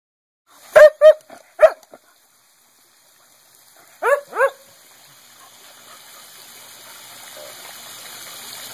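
Dog barking: three short, sharp barks about a second in, then two more a few seconds later. A faint steady hiss builds up toward the end.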